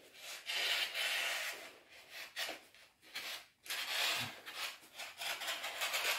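Utility knife slicing through a folded length of non-woven wallpaper, a rasping hiss in several separate strokes.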